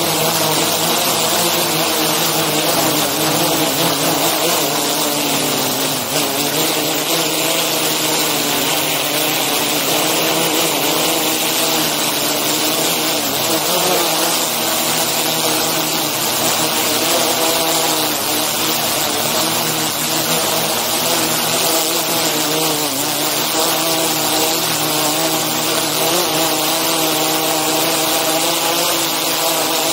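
DJI Inspire 2 quadcopter in flight, its propellers and motors making a loud, steady whine of several pitches that waver slightly, over a hiss.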